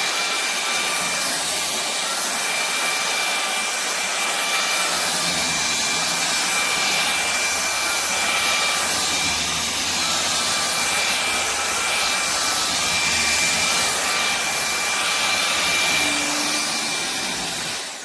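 INTETURE cordless stick vacuum running steadily with a high whine over its rushing airflow. Right at the end it is switched off and the motor winds down with a falling whine.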